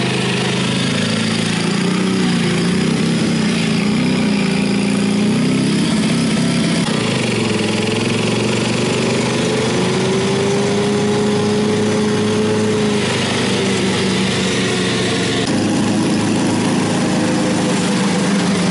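Single-cylinder 4-horsepower Briggs & Stratton engine of a vintage Rugg riding mower, fitted with a muffler, running steadily as the mower drives over grass. A thin whine rises about nine seconds in and holds for a few seconds.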